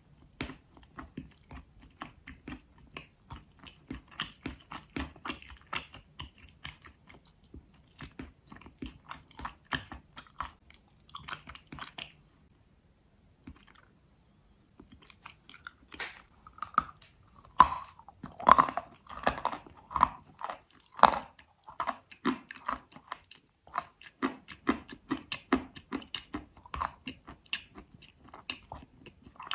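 Biting and chewing of Astana edible chalk, a rapid run of dry crunches. The crunches stop briefly about halfway through, then return louder.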